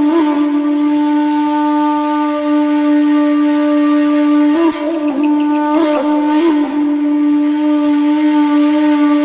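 Background music: a wind instrument holding one long, steady note, with a few brief ornamented turns around the middle before settling back on the same note.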